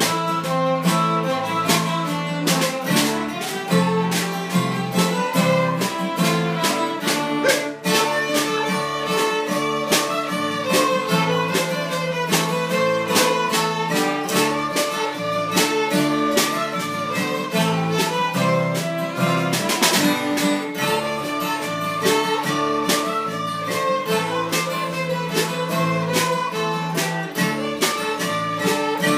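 Fiddle playing a lively Québécois tune over guitar accompaniment, with a steady quick beat and no singing.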